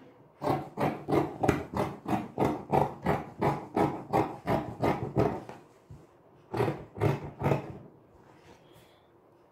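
Scissors cutting through cloth in quick, even snips, about three a second, then a short pause and three more snips near the end: a garment piece being cut out along a pattern.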